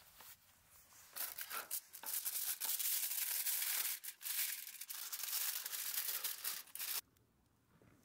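Aluminium foil crinkling and crackling as it is handled and folded. It starts about a second in and stops abruptly near the end.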